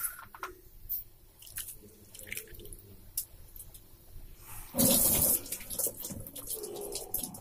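Water draining and dripping as soaked ragi vermicelli is strained, with a louder gush of pouring water about five seconds in.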